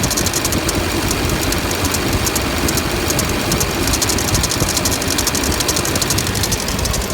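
Duramax LMM 6.6-litre V8 turbodiesel idling steadily with a rapid, even ticking from the front of the engine. The tick sounds like a bearing, but the cause is the serpentine belt, not the pulleys or the A/C clutch.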